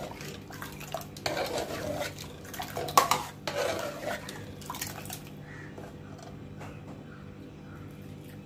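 Steel ladle stirring thick dal in an aluminium pressure cooker, scraping and knocking against the pot a few times, the loudest knock about three seconds in; after about five seconds the stirring goes quieter.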